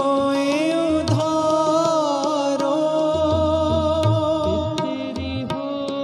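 Sikh shabad kirtan: harmonium drones under a long, ornamented held vocal note, with tabla strokes throughout and the bass drum's deep strokes coming in more heavily about halfway through.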